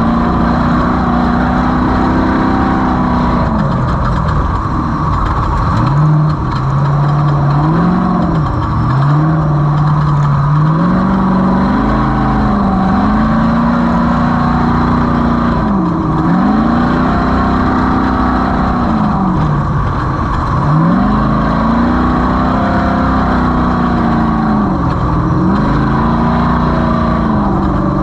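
Off-road race vehicle's engine under hard throttle, held at high revs, with the revs dropping briefly and climbing again about every four seconds. The revs sit lower for a few seconds near the start.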